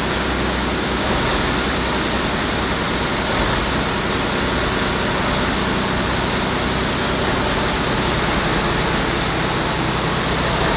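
Wirtgen 1000C cold milling machine's engine running steadily: a loud, even rushing noise over a low engine hum.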